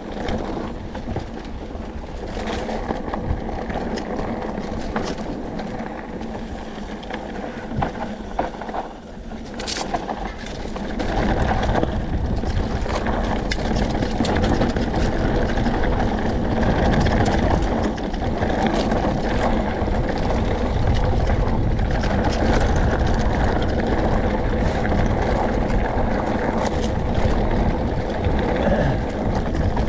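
Mountain bike riding fast down loose, rocky dirt singletrack: tyres crunching over dirt and stones, the bike rattling with occasional sharp knocks, and wind rushing on the microphone. The noise gets louder and heavier about eleven seconds in.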